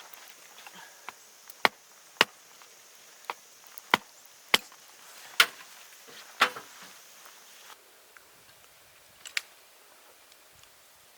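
Firewood being chopped with a blade: a series of sharp wooden cracks at uneven intervals, about eight in quick succession, then one more after a pause.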